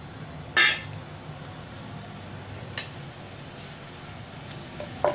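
Whole spices (cumin, fennel seeds, cinnamon, cloves, cardamom) starting to sizzle in hot oil in a non-stick pan. A sharp click about half a second in is the loudest sound, with fainter clicks near three and five seconds.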